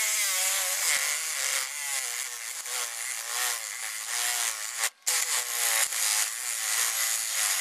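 Ryobi 18-volt cordless reciprocating saw cutting through an old rubber control arm bushing, its whine rising and falling as the blade loads up. It stops for a moment a little past halfway, then cuts again. The bushing is being sawn through so it can be pressed out.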